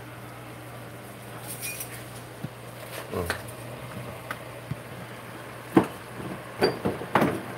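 A few short, sharp knocks and clatters over a steady low hum; the loudest knock comes a little before the end.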